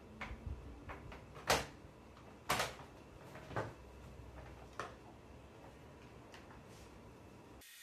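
Handling noise from a laptop on a wooden table: about six clicks and knocks as the battery is pressed home, the laptop is turned over and set down, and its lid is opened. The sharpest knock comes about a second and a half in.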